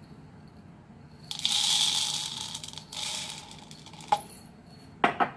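Whole black peppercorns poured into a small plastic Magic Bullet cup, rattling as they fall for about two seconds, followed by a few light clicks.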